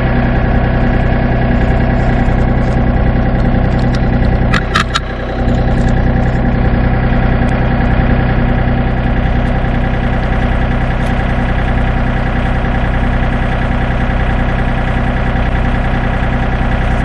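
John Deere 3025 compact tractor's three-cylinder diesel engine running at a steady speed, with a brief dip and a few short clicks about five seconds in.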